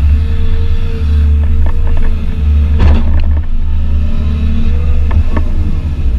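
Excavator's diesel engine running hard with a steady whine over the low drone as the bucket dumps a load of topsoil and swings back. A few sharp knocks come through, the loudest about three seconds in.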